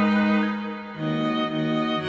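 Background music of slow, sustained chords, dipping in level just before a change to a new chord about a second in.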